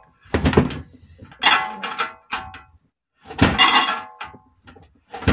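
Ratchet wrench cranking a nut along a threaded rod, metal clinking and ringing in a series of strokes about a second apart, as a socket presses a rubber silent block out of an MBK 88 moped frame.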